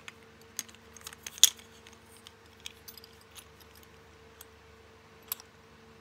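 Plastic-bodied Master Lock 410 lockout padlocks being handled and lined up side by side: a scatter of sharp clicks and knocks, the loudest about a second and a half in and another near the end. A faint steady hum runs underneath.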